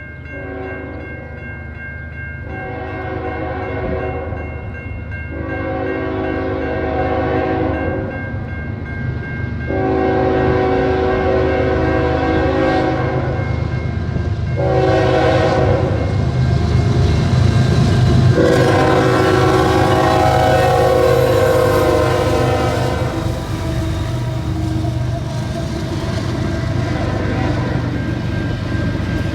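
Diesel freight locomotive's multi-note air horn blowing a series of long and short blasts as the train approaches, over the low rumble of the diesel locomotives and train, which grows louder about ten seconds in.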